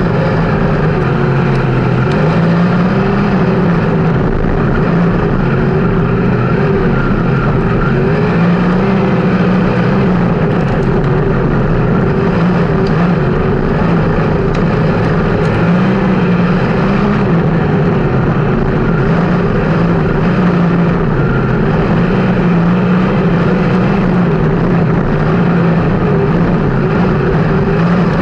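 360 sprint car's methanol-burning V8 running flat out in a race, its pitch rising and falling again and again as it goes through the straights and turns.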